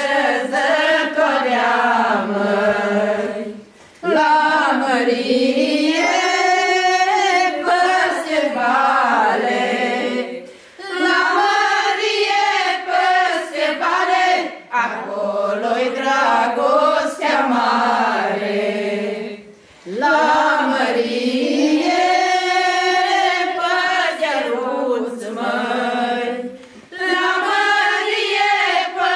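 A group of girls and women singing a folk song together without accompaniment. The phrases run about four to six seconds each, with short pauses for breath between them.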